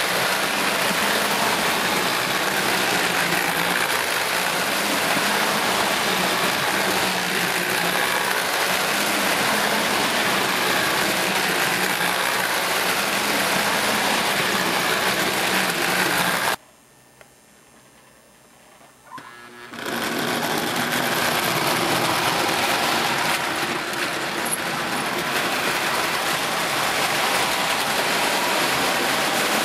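Several toy electric trains running round a model layout: a steady whirring rattle of small motors and wheels on the track. The sound drops away sharply for about three seconds just past the middle, then comes back.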